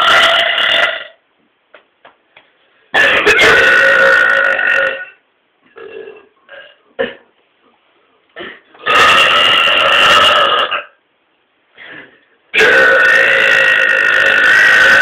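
Men burping deliberately: long, loud burps one after another, each about two seconds long and held on a fairly steady pitch. One burp ends about a second in, then three more follow with short pauses of small breaths and noises between them.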